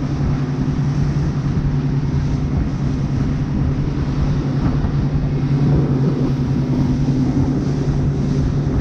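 Outboard motor of a panga running steadily under way, a constant low drone with wind and water noise over it.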